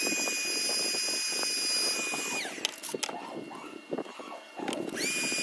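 A small handheld electric tool's motor whining at a steady high pitch, then winding down with a falling pitch about two and a half seconds in. Clicks and handling clatter follow, and the motor spins up again near the end.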